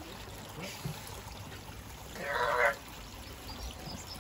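A man's short, strained vocal cry, about half a second long, a little past halfway through: the sound of exertion in an arm-wrestling pull.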